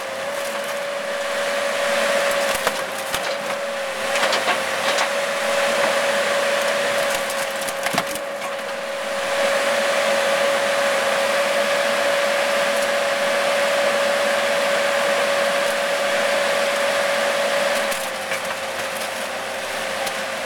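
Excavator working over a Mercedes 300D, its bucket crunching and cracking the car's body and interior in repeated snaps over a steady machine whine. The whine drops away near the end.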